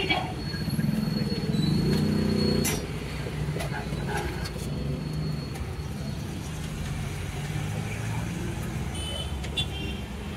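Street traffic rumbling steadily, with one vehicle's engine louder for about two seconds near the start, and a few light metal clinks of cooking utensils.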